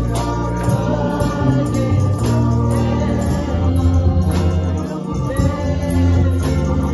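Live gospel worship music: congregation singing with a band, over deep sustained bass notes and a steady beat.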